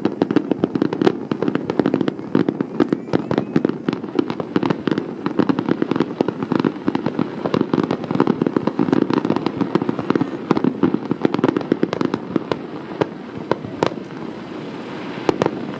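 Aerial fireworks display: a dense, rapid barrage of bursts and crackling, many reports a second over a continuous rumble. The barrage thins out about fourteen seconds in, leaving a few separate bangs.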